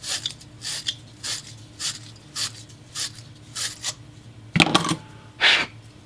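Wire brush of a plumber's fitting-cleaning tool scraping inside a copper fitting, twisted back and forth in short rasping strokes, nearly two a second, to clean it bright for soldering. Near the end come two louder knocks as the tool and parts are set down on the bench.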